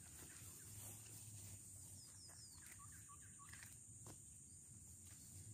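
Quiet swamp ambience: a steady high-pitched insect drone, with a few faint bird chirps a couple of seconds in and a single soft click a little after four seconds.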